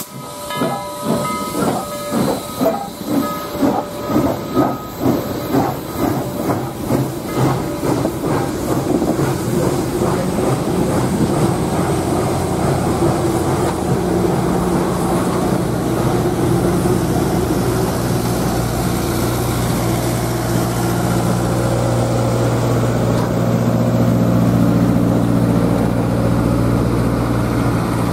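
Southern Railway 2-8-2 steam locomotive 4501 pulling away with its train: exhaust chuffs, about two a second, with a hiss of steam, fading after about eight seconds as the engine moves off. Then the steady rumble and clatter of the passenger cars rolling past on the rails.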